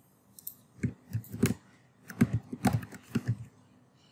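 Computer keyboard and mouse clicking in two short clusters of quick keystrokes and clicks, as text is selected, copied and pasted.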